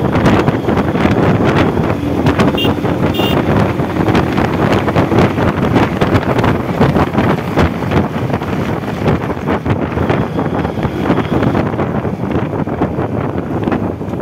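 Wind buffeting the microphone of a moving motorcycle, a loud steady rush, with the bike's running engine underneath.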